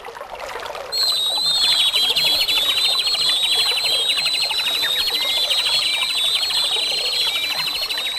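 Birds chirping in rapid, repeated high trills, setting in about a second in and carrying on steadily.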